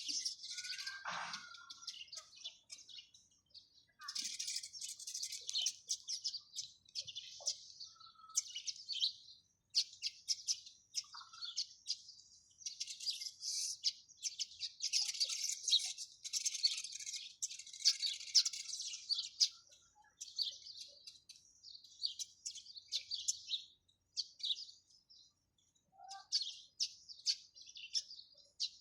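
Sparrows chirping in busy overlapping bouts of short, high chirps, with a few brief pauses.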